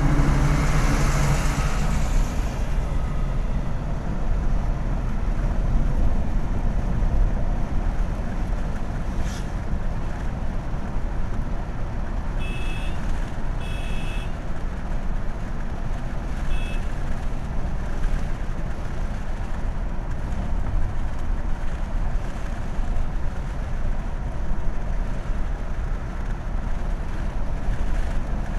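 Inside a Mahindra Bolero at highway speed: steady low engine and road rumble through the cabin, louder for the first two seconds as a dump truck passes close alongside. A few short, high two-note beeps sound in the middle.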